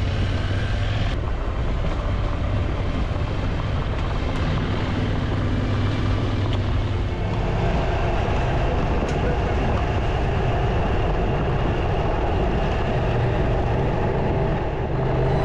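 KTM 790 Adventure R's parallel-twin engine running while the motorcycle is ridden, with its note shifting a few times, under a steady rush of wind and road noise.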